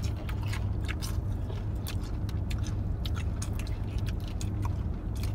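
Close chewing and crunching of fried onion rings: a stream of short, crisp crackles, over a steady low hum inside the car.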